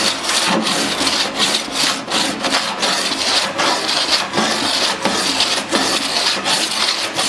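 A metal body file rasping in repeated strokes across a bare steel car door panel. This is file finishing, which scrapes down the high spots and shows up the low spots after dents are pulled up with heat.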